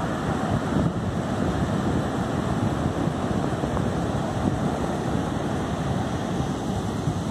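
Wind buffeting the microphone over the steady roar of heavy surf breaking on the beach.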